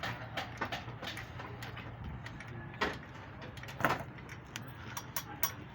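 Scattered metallic clicks and knocks of hand tools and engine parts being handled, two of them louder about three and four seconds in, over a steady low hum.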